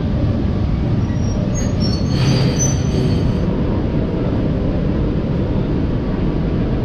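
Electric locomotive easing up to the end of a passenger car for coupling: a steady low rumble, with a brief high metallic squeal from about one and a half to three and a half seconds in.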